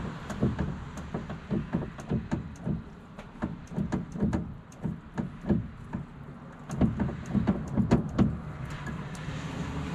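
Irregular metallic clicks and knocks, a few a second and loudest near the end, as the Ford F250's tailgate handle and latch are worked and rattled; the latch won't release and feels locked.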